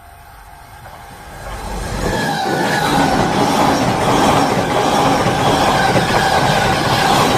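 E259 series Narita Express electric train passing at speed. Its noise builds over about two seconds into a loud, steady rush of wheels on rail.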